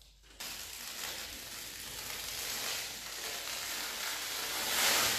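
Painter's masking tape being peeled off a freshly painted wall in one long pull: a steady tearing noise that starts about half a second in, grows louder toward the end, and stops just after.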